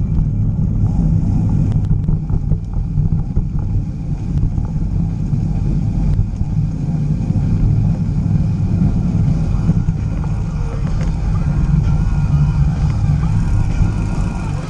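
Steady low rumble of wind buffeting a bike-mounted camera's microphone, mixed with the tyres rolling and bumping over a dirt trail, as a mountain bike is ridden.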